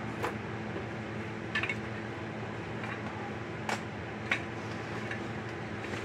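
Steady electrical hum with a few sharp, irregularly spaced clicks and light clinks.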